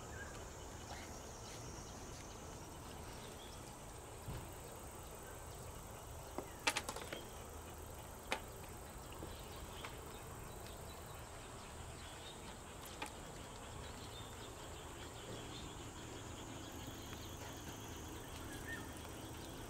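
Quiet reservoir-bank ambience with a faint, steady high insect drone. A handful of soft clicks and knocks come in the middle stretch as the long float-fishing rods are handled.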